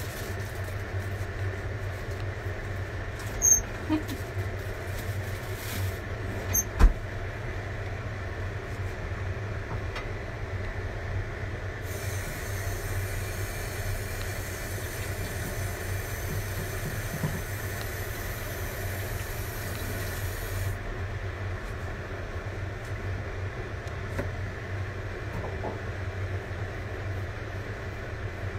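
Kitchen tap water running into a stainless steel sink for about nine seconds in the middle, starting and stopping abruptly, over a steady low hum. Two sharp knocks come a few seconds apart near the start, typical of a kitchen knife on a plastic cutting board.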